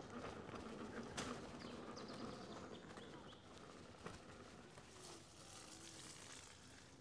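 Quiet outdoor woodland sound with faint bird calls and two short, sharp knocks, about a second in and again about four seconds in.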